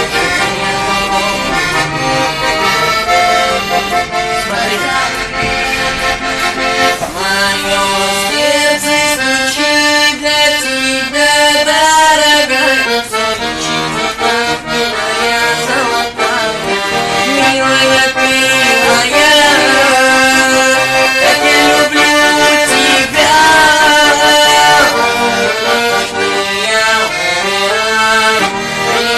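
Garmoshka (Russian button accordion) playing a melody over chords, steady and loud throughout.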